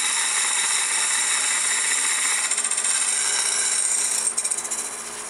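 Turning tool cutting a spinning sumac blank on a wood lathe, a steady loud shearing hiss as the ball is rough-shaped. About four seconds in the cut stops and the lathe keeps running, quieter.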